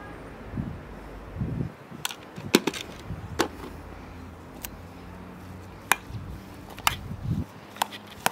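A series of sharp, irregular clicks and knocks, roughly one a second, with a few duller thuds among them over a low steady background.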